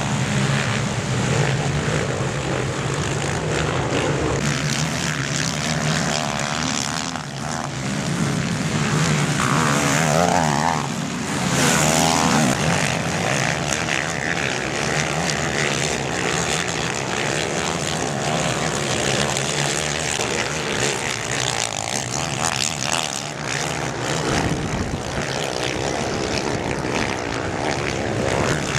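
Several racing quad bikes (ATVs) running on a dirt motocross track, a steady engine drone from the pack. About ten seconds in, one engine revs up and down.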